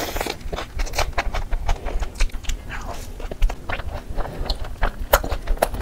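Close-miked eating sounds: a big bite into a burger and chewing, with many short clicks and crackles, one sharp crackle loudest near the end.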